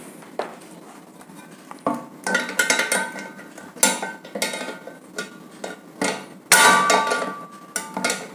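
Pliers gripping and turning the bolt that holds an exhaust fan's metal blade on the motor shaft: a series of metallic clinks and scrapes with a slight metal ring. It starts about two seconds in and is loudest near the end.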